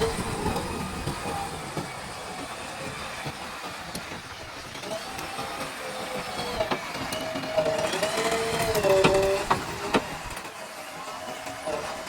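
Backhoe loader working: the machine runs with a wavering whine that bends up and down in pitch, loudest near the end, and a few sharp metallic knocks.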